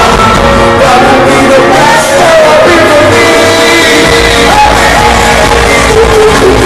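Live concert music played very loud: a singer's voice holds and bends long notes over the band, and a deep bass comes in strongly about four seconds in.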